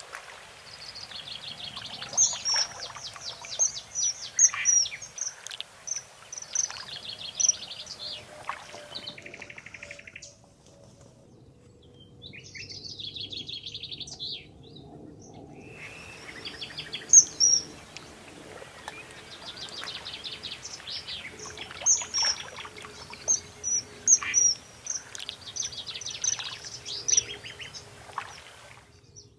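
Several songbirds singing at once: overlapping rapid trills and short, sharp high chirps. The singing thins out for several seconds near the middle, then picks up again.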